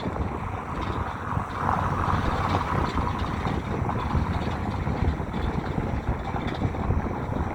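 2023 Nissan Sentra SV on the move: steady road and tyre rumble with wind noise on the microphone and a few faint light ticks.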